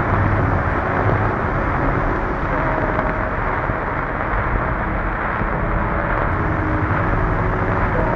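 Slowed, reverb-heavy dark ambient music built from distorted old ballroom-record samples: a dense, steady wash of muffled, distorted noise with faint held tones inside it.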